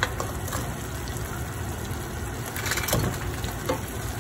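Fried lollipop chicken pieces being dropped into a frying pan of hot sauce: a steady sizzle, with a few soft thumps and clacks as pieces land, the loudest about three seconds in.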